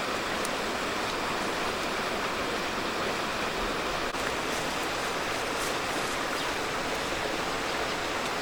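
Steady rushing of flowing water, like a stream running over rocks, with a few faint ticks.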